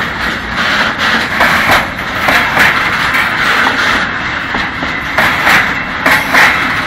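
Freight train of covered sliding-wall wagons rolling past, loud, its wheels clattering over the rails in a continuous run of clacks.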